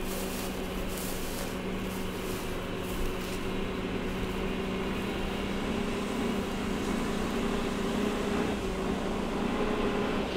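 Mercedes-Benz truck's diesel engine running with a steady low hum as the truck rolls slowly closer, growing a little louder toward the end.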